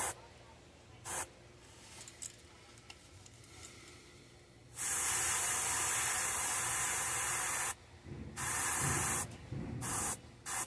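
Airbrush spraying paint in hissing bursts: a short puff about a second in, one long spray of about three seconds from just before the middle, then several shorter ones near the end.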